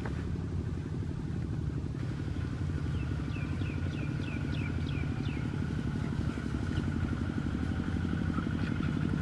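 A motor engine running steadily, a low rumble that grows slightly louder. About three seconds in comes a quick run of about eight short, high, falling chirps.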